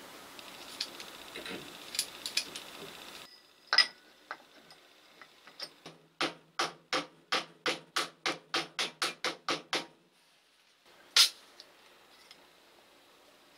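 A hammer taps a tube over the motor shaft, driving the cast-aluminium end cover of a 1959 Hokushin Denki blower motor down onto its shaft bearing: about sixteen short, even taps, a little over four a second, then one sharper knock. Before the taps, a few seconds of steady hiss with scattered clicks and a single loud knock.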